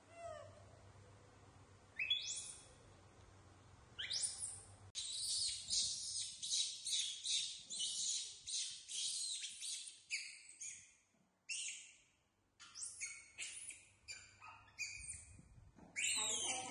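Young macaque crying in short, high-pitched squeals, each rising in pitch. There are single cries about two and four seconds in, then a fast run of about two a second, typical of a young monkey's whining while it is impatient for food.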